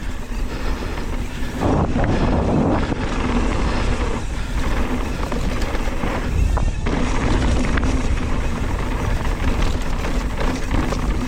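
Riding noise of a hardtail mountain bike descending a dirt flow trail: wind rushing over the microphone and tyres rolling over the dirt, steady throughout with a few louder patches.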